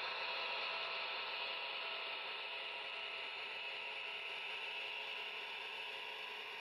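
HO scale model freight train rolling past on its track: a steady, quiet running noise of the wheels on the rails that slowly fades.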